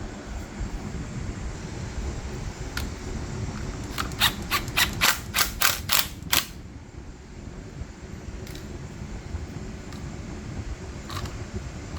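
A quick run of about eight sharp clicks, roughly four a second, lasting a couple of seconds, from hand work on a Ryobi pole saw's freshly fitted chain and bar. A steady low hum underneath.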